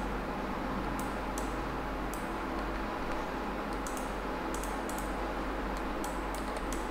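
Scattered light clicks of a computer mouse and keyboard, a few at a time with a quick cluster near the end, over a steady background hiss.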